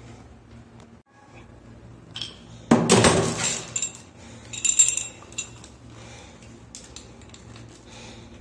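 Metal clattering and clinking as plumbing tools and fittings are handled: one loud clatter about three seconds in, then a few ringing metallic clinks about a second later, over a low steady hum.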